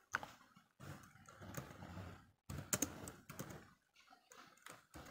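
Typing on a computer keyboard: quick, uneven key clicks in short runs with brief pauses between them.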